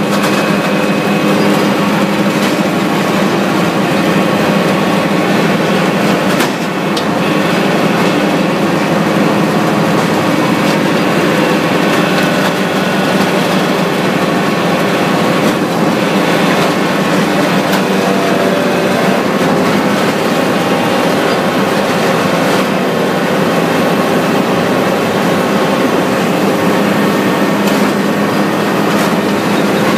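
Mobile Cambio 45 debarker running: a loud, steady mechanical din with a strong hum and scattered knocks.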